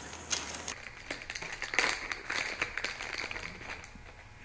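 Plastic bait bag crinkling and rustling as it is handled and opened by hand: a fast, irregular run of crackles that is thickest in the middle and thins out near the end.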